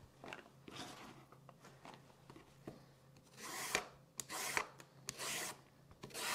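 Y-shaped vegetable peeler shaving ribbons off a carrot on a wooden board: faint scrapes at first, then about four louder scraping strokes in the second half, each about half a second long.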